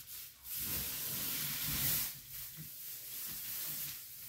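Paint roller on an extension pole rolling wet paint down a wall, a steady hiss with a short break about two seconds in. These are the light finishing strokes that lay the paint off in one direction so no roller marks show.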